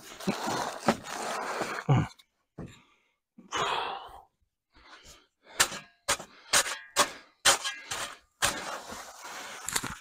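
Bags of dry concrete mix being emptied into a slab form: a rushing hiss of pouring powder at first, then a run of sharp knocks and slaps from the bags in the second half.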